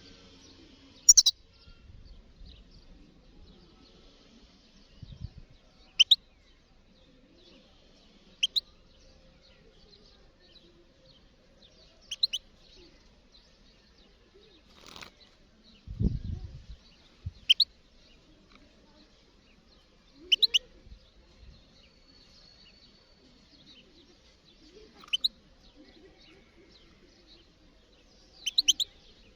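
European goldfinch giving short, sharp, high calls every few seconds, each a quick downward-sweeping double or triple note. A low thump about halfway through.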